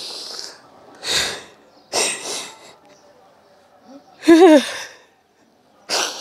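A woman sobbing: several sharp breathy gasps and sniffs, then a short wavering wail about four seconds in, the loudest sound.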